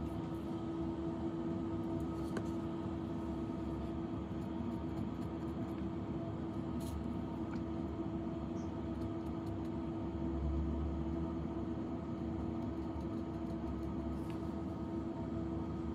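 Steady machine hum with a low rumble, and a few faint clicks over it.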